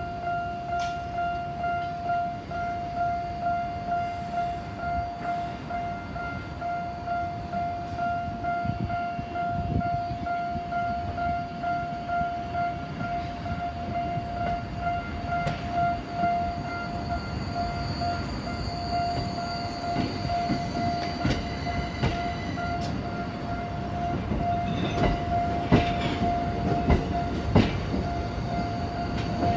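Japanese railway level-crossing warning bell ringing, a steady electronic ding repeating about twice a second. A Tokyo Metro Ginza Line 1000-series train runs over the crossing under it, its rumble building and its wheels clicking over rail joints near the end.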